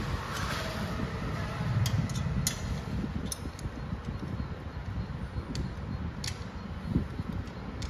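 Hand tools clicking sharply against the motorcycle silencer's mounting nuts every second or so as it is bolted back on, over a steady low rumble.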